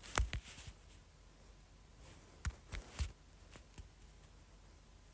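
Quiet room tone with a handful of soft, short clicks and taps, a few near the start and a cluster of about five around the middle.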